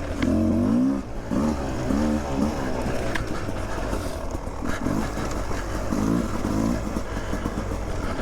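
Beta 300 two-stroke enduro dirt bike engine being ridden, the throttle rolled on and off so the engine note rises in short revs every second or two over a steady low rumble.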